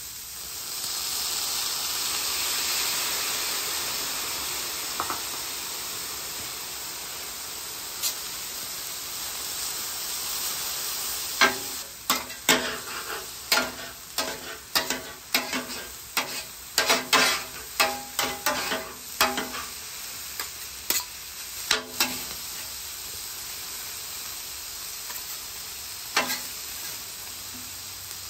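Drained sauerkraut hitting the hot flat-top griddle with a sizzle that swells at once and slowly dies down. After that, two metal spatulas clack and scrape over and over on the griddle's steel top as the cabbage and sauerkraut are tossed, over the ongoing frying sizzle.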